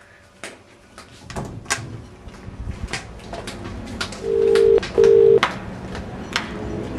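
British telephone ringing tone heard down a phone line while a call is being placed: a double "ring-ring" of two steady low tones, starting about four seconds in. Before it come a series of sharp clicks.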